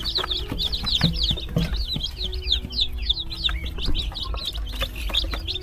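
A box of newly hatched chicks peeping constantly, many short high chirps overlapping, with a few light taps.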